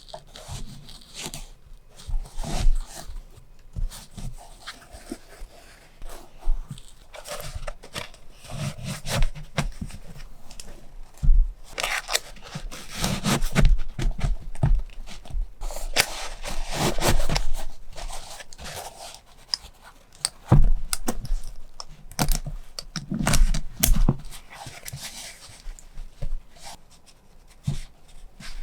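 Close-up handling noise of packaging and stationery: crinkling, rustling and scraping with irregular sharp taps and clicks.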